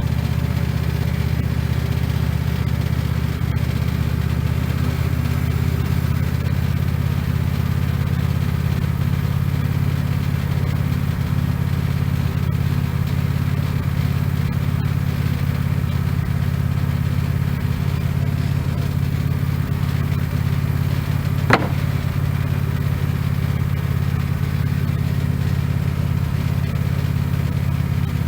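Wood-Mizer LX150 bandsaw sawmill's engine running steadily, with one sharp click about three-quarters of the way through.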